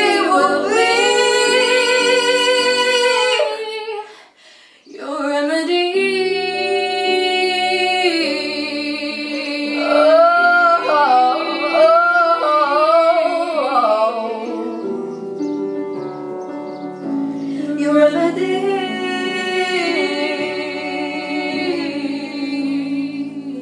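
Two women singing a slow ballad together in harmony, holding long notes, with a short break about four seconds in and wavering vibrato on the notes midway through.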